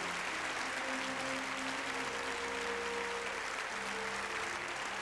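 A large audience applauding steadily in a long ovation, over music with long held notes.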